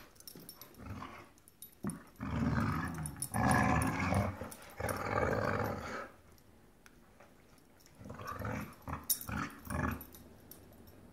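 Dogs growling as they tug at a rope toy in play. A long stretch of growling from about two seconds in to six seconds, then a few shorter growls a couple of seconds later.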